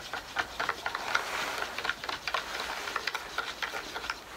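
A stirrer ticking against the side of a plastic beaker as borax powder is stirred into hot water, about three to four light clicks a second.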